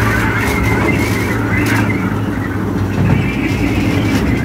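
Small theme-park ride train running along its track: a steady low hum with the rumble of the wheels on the rails and a couple of brief knocks.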